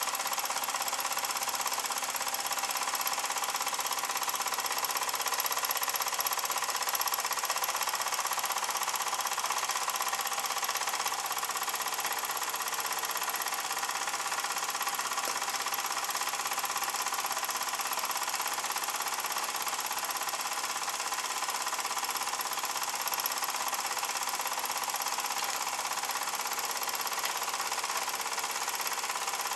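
Wilesco D16 toy steam engine, freshly overhauled, running steadily: a rapid mechanical chuffing from its single oscillating cylinder over a continuous hiss of steam.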